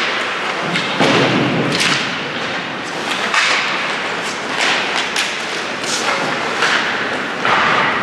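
Ice hockey game in play: a run of sharp knocks and thuds from sticks, puck and boards over the scraping of skates on the ice.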